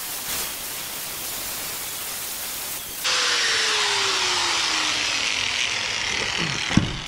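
Corded angle grinder with a coarse sanding disc grinding down the edges of a PVC pipe hook. About three seconds in it gets suddenly louder and the motor's pitch falls steadily as it winds down, with a sharp knock near the end.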